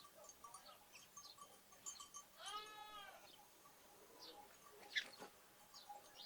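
A lamb bleats once, a drawn-out call about two and a half seconds in, over scattered chirping of sparrows and other small birds. A brief, sharp bird call about five seconds in is the loudest sound.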